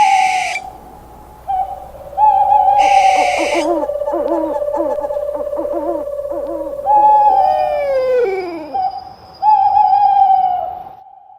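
Owl hooting: a series of hoots that drop in pitch at their ends, several overlapping, with one long drawn-out note in the middle. Two short hissing bursts come at the start and about three seconds in.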